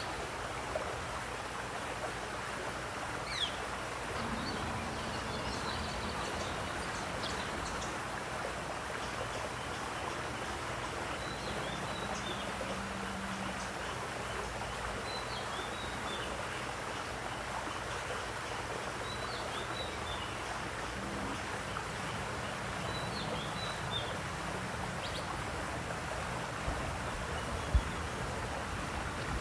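Steady running, splashing water, with short high bird chirps every few seconds. A single sharp knock comes near the end.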